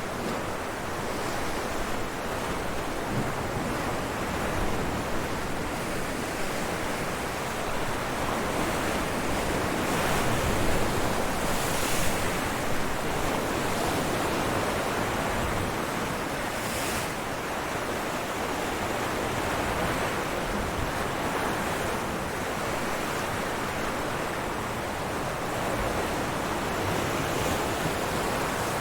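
Ocean surf breaking on rocks: a steady wash of wave noise with slight swells, and two brief hissing bursts of spray, about 12 and 17 seconds in.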